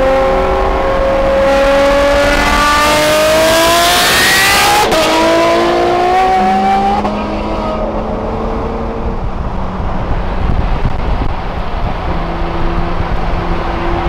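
Ferrari sports car engine with a Kline Innovation exhaust accelerating hard, its pitch climbing through the revs for about five seconds. A sudden gear change breaks the note, and it climbs again briefly before settling into a quieter, steady drone at cruising speed.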